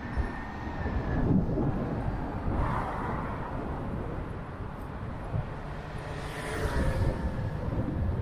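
City street traffic with wind buffeting the microphone of an action camera on a moving bicycle: a steady rush and low rumble that swells twice, about a second in and again near the end.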